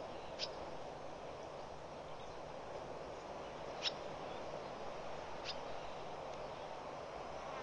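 Three short, high bird calls a few seconds apart, the middle one the loudest, over a steady even outdoor hiss.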